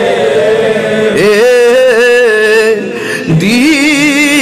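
A man sings a Bengali murshidi devotional song without instruments, holding two long wavering notes with a short break about three seconds in.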